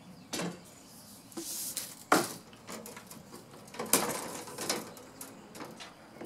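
Hands handling freshly stripped 14-2 electrical cable: short rustles and a few sharp clicks and taps as the wires are moved, the loudest click about two seconds in.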